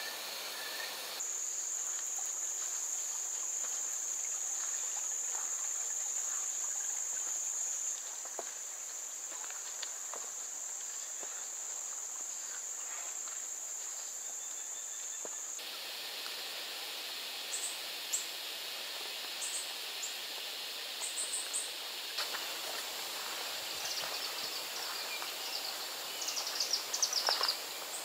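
Steady, high-pitched insect buzz from the woods, which breaks off abruptly about halfway. Afterwards come scattered short high chirps, with a quick run of them near the end.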